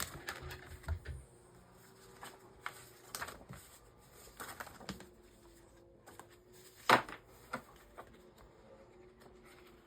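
Paper planner inserts being handled and put into a ring planner: light rustling and scattered small clicks and taps, with one sharp click about seven seconds in.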